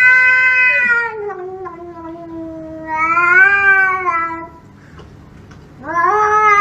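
A cat yowling: three long, drawn-out calls that waver in pitch, the first sinking low and trailing on, the last starting near the end.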